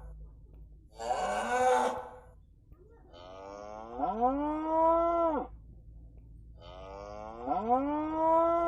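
Cattle mooing three times. The first is a short, rough moo about a second in. Then come two longer moos that rise in pitch and then hold steady.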